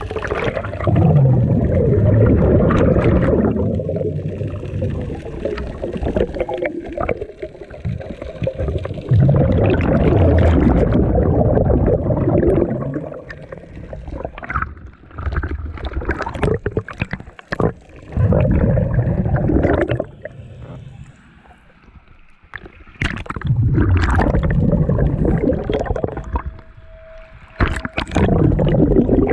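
A scuba diver breathing through a regulator underwater: each exhalation is a burst of bubbling that lasts two to three seconds, about every four to six seconds, with quieter gaps between. It is heard muffled through the camera's waterproof housing.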